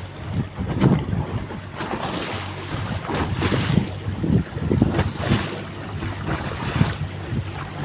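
Boat motor running steadily under way, with gusts of wind buffeting the microphone over the wash of water against the hull.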